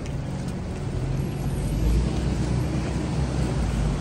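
City street traffic with buses running in the road: a steady low engine rumble that swells about halfway through.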